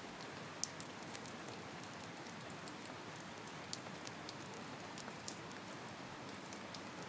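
Steady rain, with scattered sharp ticks throughout.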